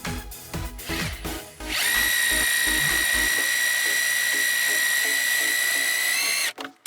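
Electric drill running at a steady high whine for about five seconds, starting about two seconds in and cutting off near the end, over background music.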